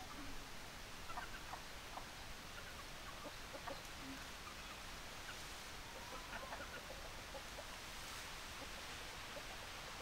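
Chickens clucking softly, a few short scattered calls at a time over a steady background hiss.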